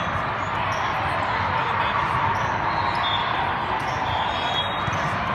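A basketball bouncing on a gym court amid steady crowd chatter during a game.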